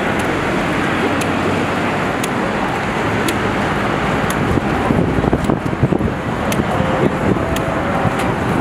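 Steady traffic noise of a busy city street, with sharp faint ticks about once a second. The sound swells and turns uneven around the middle.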